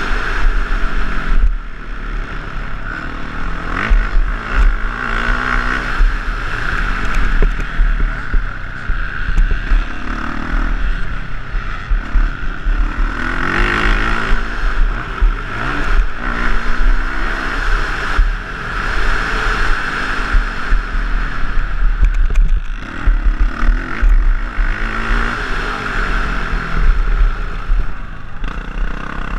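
Motocross dirt bike engine racing hard, its pitch climbing and dropping back over and over as the rider accelerates, shifts and rolls off. A constant rumble of wind buffets the helmet-mounted microphone.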